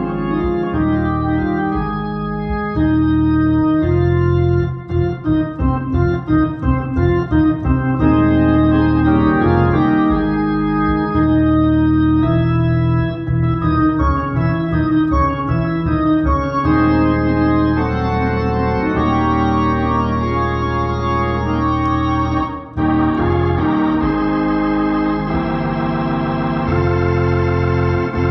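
Hammond console organ played live, with sustained full chords over a steady bass. A run of short, choppy chord stabs comes about four to eight seconds in, and there is a brief break about twenty-two seconds in.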